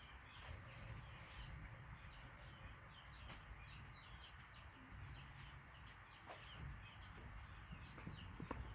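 Faint birds chirping: many short, falling chirps, several a second, over a low rumble.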